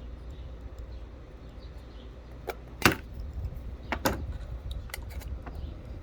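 Sharp metallic clicks and clinks, a handful spread over the second half with the loudest about three seconds in, as channel-lock pliers work at the knockout ring in the arbor hole of a circular saw blade. A low steady hum runs underneath.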